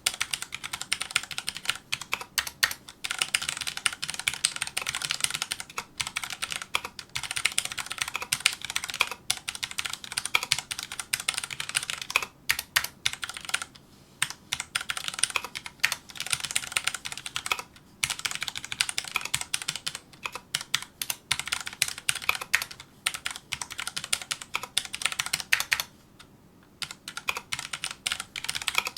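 Fast touch-typing on a Filco Majestouch2 mechanical keyboard with Cherry MX Brown switches: a dense, rapid patter of key clicks and bottom-outs in long runs, broken by brief pauses, the longest about three quarters of the way through.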